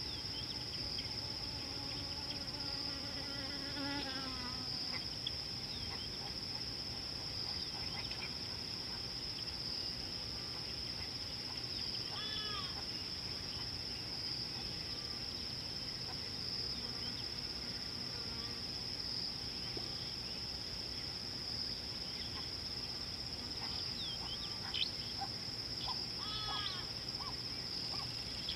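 Steady high-pitched insect drone, crickets or cicadas buzzing without a break in the bush. Short bird chirps come and go, several near the end.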